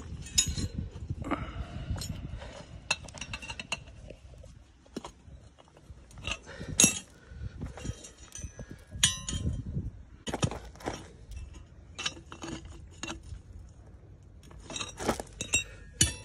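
Steel pipe and flat-bar bracket being handled and bent by hand, giving scattered sharp metallic clinks and knocks.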